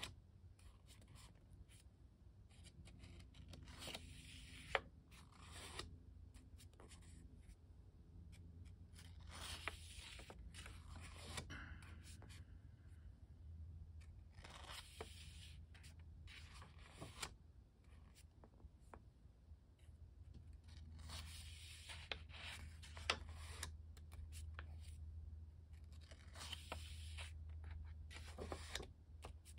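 Paper pages of a small sketchbook being handled and turned by hand: faint rustles and swishes every few seconds, with a couple of sharp clicks.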